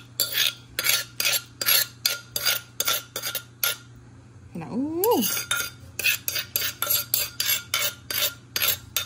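A spoon scraping and knocking around the inside of a mortar to empty out a pounded salad, in quick strokes about three a second. The strokes pause briefly before the fifth second, where a short hum rises and falls in pitch, then start again.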